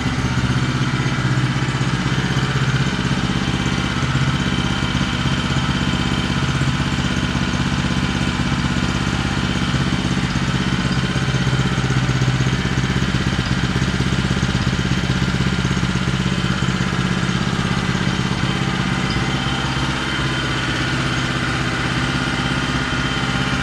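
Honda GX160 single-cylinder four-stroke engine, a healthy one, running steadily at raised revs, much quieter and without the crankshaft-to-connecting-rod knock of a worn engine.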